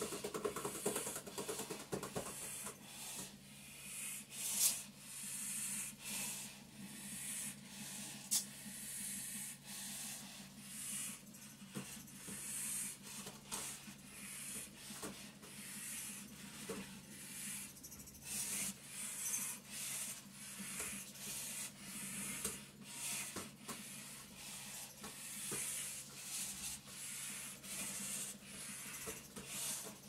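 Heavy, rhythmic breathing through a breathing-resistance endurance mask, a hissing breath about every second and a half, over the steady hum of a vibration plate's motor. Now and then there is the sharp slap of a basketball being handled.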